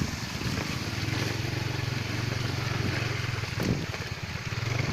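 Motorcycle engine running steadily, an even low hum with a fast pulse, while riding.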